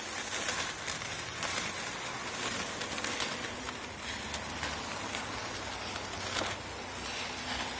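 Sausages and hamburgers sizzling on a barbecue grill: a steady hiss with many fine crackles of cooking fat.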